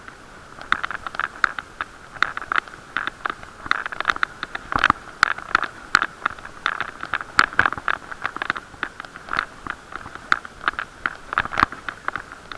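Irregular rattling clicks and knocks from a bicycle riding over an uneven surface, several a second, picked up through an action camera's waterproof case.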